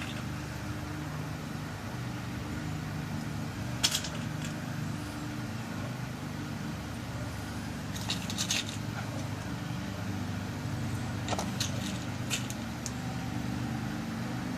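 Small sharp metallic clicks as new pin tumblers are loaded into a lock cylinder being rekeyed: one at about four seconds, a cluster a little past halfway, and several more near the end. A steady low hum runs underneath.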